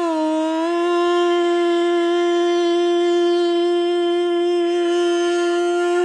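Carnatic devotional singing: the voice glides up slightly, then holds one long steady note for about five seconds before breaking off near the end.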